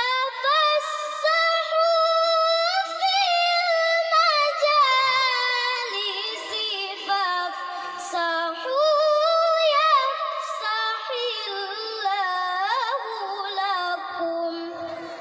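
A young girl's voice reciting the Quran in melodious tilawah style: one long, high-pitched phrase with quavering melismatic ornaments that starts abruptly and trails off near the end.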